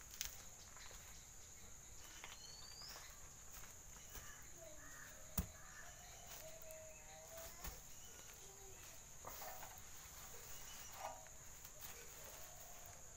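Quiet rural outdoor ambience: a steady high-pitched insect drone, with faint distant animal or bird calls. A single sharp click about five seconds in.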